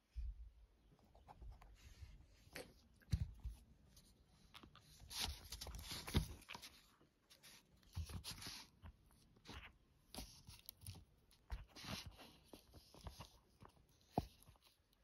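Faint, irregular crackles, scrapes and tearing sounds as fingers and a utensil pick and cut at an orange's peel around spoiled spots, mixed with occasional low knocks of handling.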